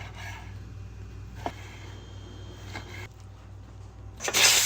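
A steady low hum with a few light clicks, then about four seconds in a tap turned on, water rushing loudly.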